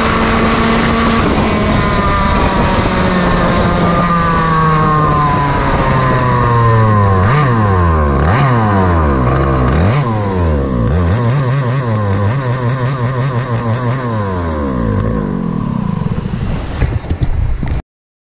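Yamaha KT100 single-cylinder two-stroke kart engine running at high revs, then slowing steadily as the throttle comes off. Its revs then rise and fall again and again, and the sound cuts off abruptly near the end.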